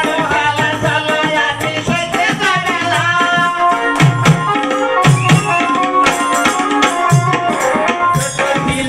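Live Bengali alkap folk music: a wavering melody line over hand-drum beats and rattling percussion, with heavier drum strokes about four, five, seven and eight seconds in.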